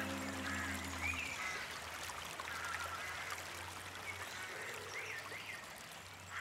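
Faint nature ambience of trickling water, with a few short bird calls scattered through it, gradually fading out. The last of the song's music dies away in the first half-second.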